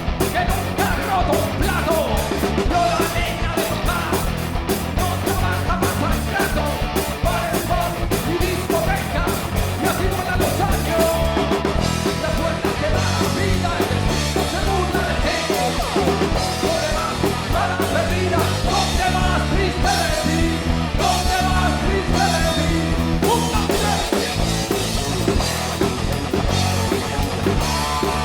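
Live rock band playing a song: electric guitars, bass and drums, with a lead line wavering over the top. The drum pattern changes about eleven seconds in.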